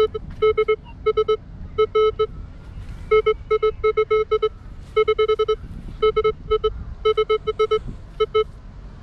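Minelab Vanquish 540 metal detector sounding its target tone: short beeps at one steady pitch, in quick clusters of two to five, as the coil is swept back and forth over a dug hole.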